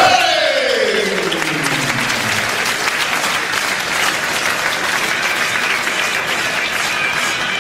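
Arena crowd cheering and applauding a fighter's introduction. Over the first two seconds a long, drawn-out call slides down in pitch.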